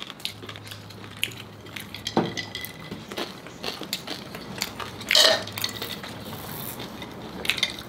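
Spoon and fork clicking and scraping on plates during a meal, with eating sounds. One louder short noise comes about five seconds in.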